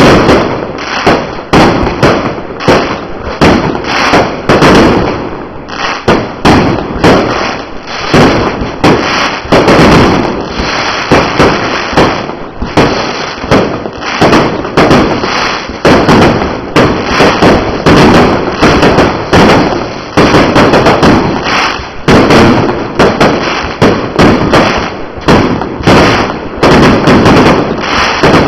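Fireworks display going off in a rapid, dense barrage of bangs and crackles, several a second, with no pause.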